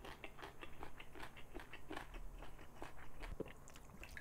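A person chewing a mouthful of food close to a clip-on microphone: a quick, irregular run of small wet clicks and smacks. A soft low thump comes about three and a half seconds in.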